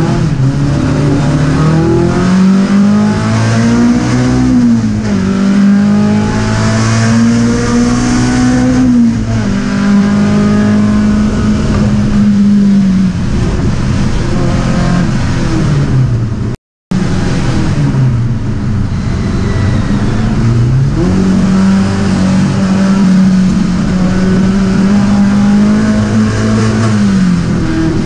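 Skoda 130 RS's rear-mounted four-cylinder engine heard from inside the cabin at racing speed, revving up through the gears, holding high revs along the straights and falling off as it slows for corners, twice over. The sound cuts out completely for a moment about two-thirds of the way through.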